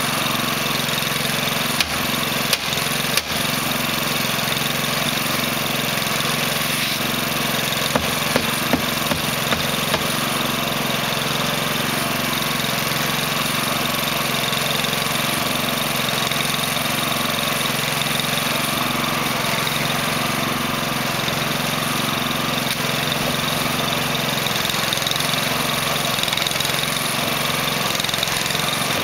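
Engine-driven paddle mortar mixer on a trailer running steadily while mixing concrete curbing material. A few sharp knocks stand out over it, three about two to three seconds in and a short cluster around eight to ten seconds in.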